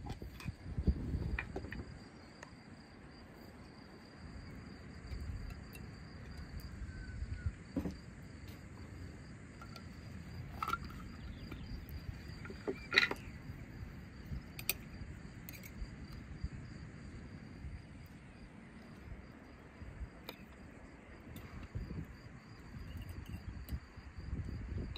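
Hand-held lever-type jar opener clicking and scraping as it cuts the tin lid of a glass pickle jar, the sharpest click about thirteen seconds in, with a fork clinking in the glass jar near the end. Insects chirr steadily in the background.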